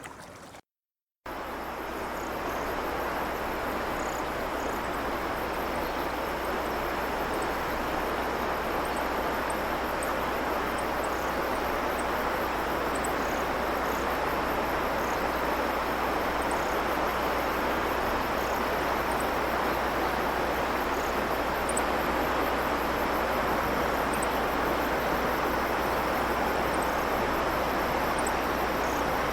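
A shallow river or stream babbling steadily, an even rush of water, with faint, scattered high bird chirps. Near the start the sound drops out for about a second and then resumes.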